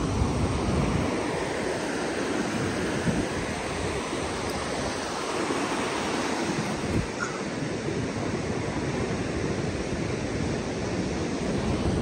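Pacific Ocean surf breaking and washing up the beach as a steady rush, with gusts of wind buffeting the microphone in low rumbles now and then.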